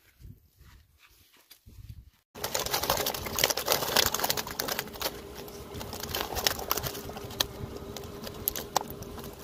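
Quiet for about two seconds, then suddenly dense rustling full of sharp clicks and slaps. This is a mesh keep net full of freshly caught carp being handled on grass, the live fish flapping inside it.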